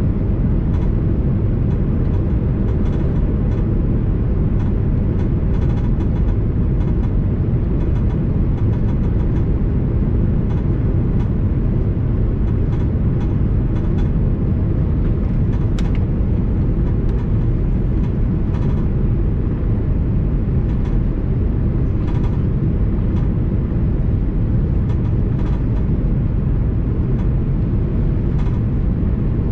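Steady low rumble inside the cabin of an Airbus A330-200 airliner, with faint scattered rattles.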